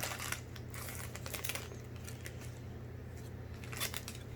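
Pokémon trading cards and foil booster-pack wrappers being handled and sorted: light clicks and rustles, mostly in the first second and a half and once more near the end, over a steady low hum.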